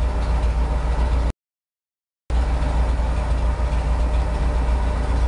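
Ford 460 big-block V8 idling, heard at the exhaust under the truck: a steady deep idle, slightly shaky with the light misfire the owner notes after a cam replacement, the valve tick gone. The sound cuts out completely for about a second partway through, then resumes unchanged.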